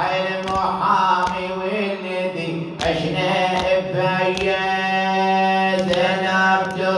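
Wordless chanted vocal line of an Arabic Shia lament (latmiya): long held, drawn-out notes over a steady low humming drone, with sharp percussive hits roughly every second.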